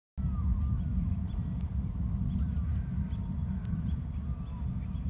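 A steady low rumble with faint, scattered bird calls over it: short high chirps and a few brief falling notes.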